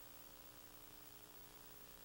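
Near silence: a faint steady hiss with a low hum underneath.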